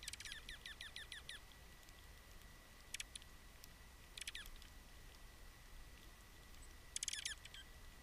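Small songbirds calling: a quick run of high, sharply falling chirps, then three shorter bursts of the same about three, four and seven seconds in.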